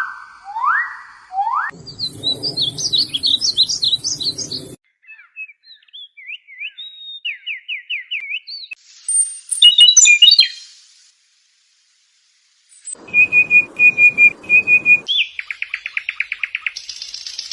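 Songbirds calling and singing: several different passages one after another, with rising whistles, rapid high chirps, trills and runs of repeated notes, each starting and stopping abruptly with short silences between.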